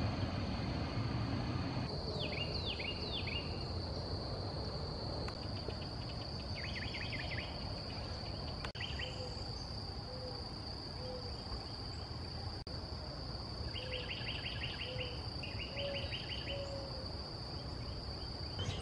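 A steady high-pitched insect drone, with a songbird singing short trilled phrases several times over it.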